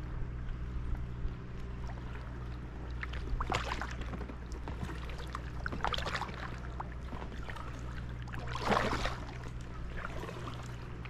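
Kayak paddle strokes: the blade dips and splashes in calm lake water about once every two and a half seconds, three strokes in all, with dripping and trickling between them; the stroke near the end is the loudest.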